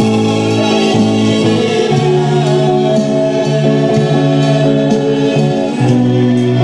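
Live Christian praise music from a church praise group: held keyboard chords over a moving bass line, with singing.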